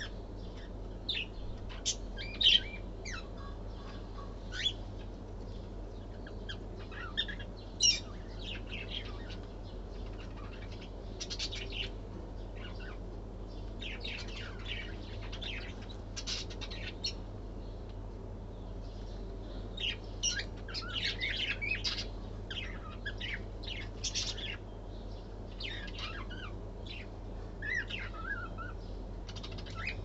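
Lovebirds chirping: short, sharp, high chirps come irregularly and sometimes in quick clusters, with the loudest near the start and around eight seconds in, over a steady low hum.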